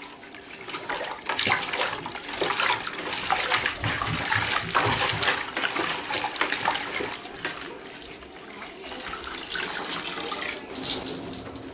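A hand working a knee pad under soapy water in a plastic bucket, giving uneven sloshing and splashing. Near the end the pad is lifted out, with water pouring and dripping back into the bucket.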